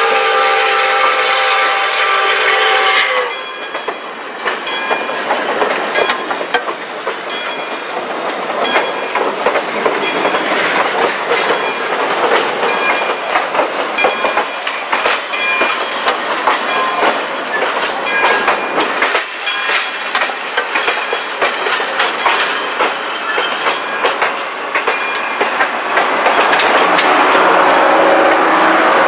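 The steam whistle of Pere Marquette 1225, a 2-8-4 Berkshire, sounds a chord of several notes and cuts off about three seconds in. Then the passenger train rolls past, a steady rumble with the wheels clicking over rail joints, louder near the end as the cars pass close.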